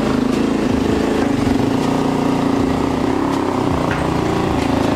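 Yamaha YZ250F four-stroke single-cylinder dirt bike engine running steadily at low throttle. The throttle and clutch are being worked to help push the bike up a loading ramp.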